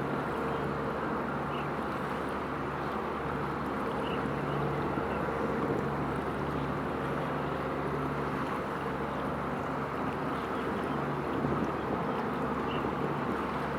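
Steady low mechanical drone of a passing container ship's engines, a constant hum under a wash of wind noise, with a few faint high chirps.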